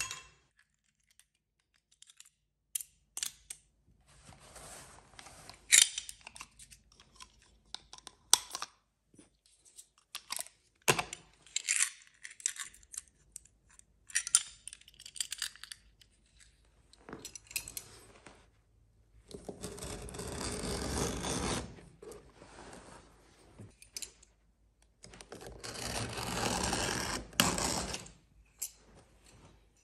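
Hand work on a stair carpet runner: scattered sharp clicks and knocks, then two longer rough, noisy stretches of about two and three seconds.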